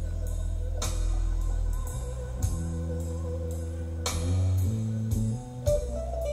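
Recorded band music with a steady bass line and drum hits, played back over a pair of large Wolf von Langa loudspeakers in a listening room.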